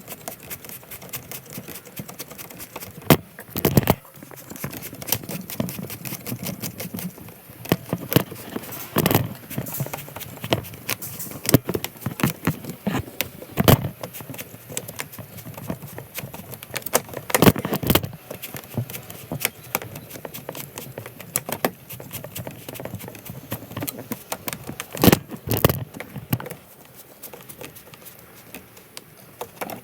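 Irregular clicks, taps and knocks of hard objects handled close by, with a few louder sharp knocks.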